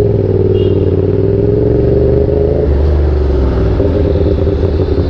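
CFMOTO 450SR's parallel-twin engine running at fairly steady revs while riding, its note changing slightly about three seconds in.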